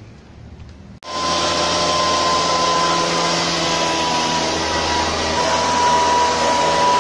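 Backpack motorized mist blower's small two-stroke engine running steadily at high speed, blowing insecticide mist through its tube with a loud rush of air and a steady high whine. It cuts in abruptly about a second in, over a faint quiet background before.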